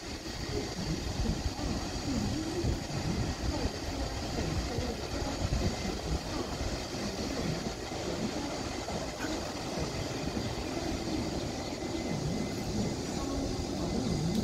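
Train running through the station, a steady rumble on the rails.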